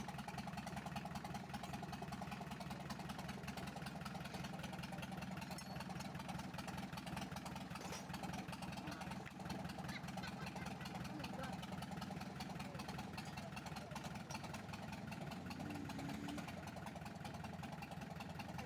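An engine idling steadily with a fast, even running note.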